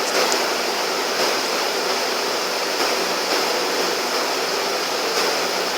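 Steady rushing hiss at an even level, like running water or a fan, with no distinct knocks or clicks.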